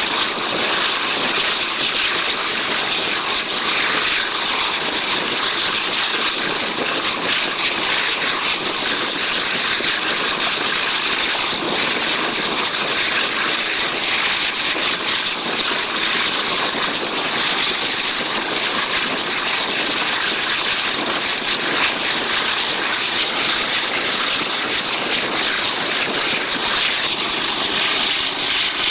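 Steady rush of wind and running noise of a passenger train at speed, heard from an open coach window.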